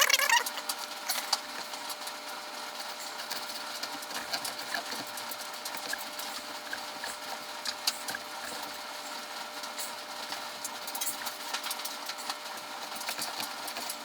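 Hot iron of a plastic welding kit melting plastic on a trash can handle, giving a steady hiss with many small irregular crackles and ticks.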